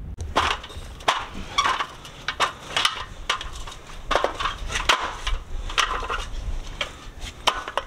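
Someone climbing an aluminium ladder: irregular knocks and clanks of boots and hands on the metal rungs, with scuffing in between.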